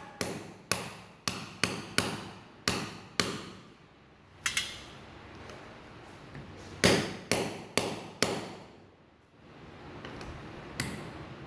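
Steel hammer blows ringing on metal as a ball bearing is driven down into a brush cutter's gearhead housing. There is a run of about seven quick strikes, a brief rattle, then four more strikes and one lighter tap near the end.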